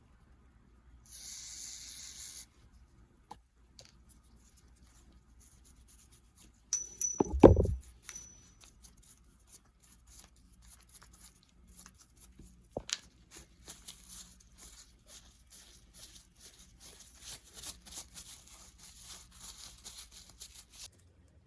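Hand-work noises on bicycle bottom-bracket parts: a short hiss about a second in, a single loud knock with a brief clatter near the middle, then a long stretch of scratchy rubbing and small clicks.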